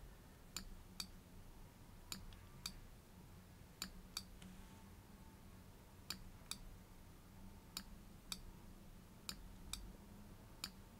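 Faint clicks of a computer mouse button, mostly in pairs about half a second apart: the press and release of each click-and-drag stroke, coming every second or two. A faint low hum lies under them.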